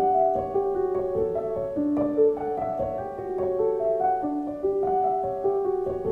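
Piano music: a gentle melody of struck, sustained notes, with a short phrase repeating about every two and a half seconds.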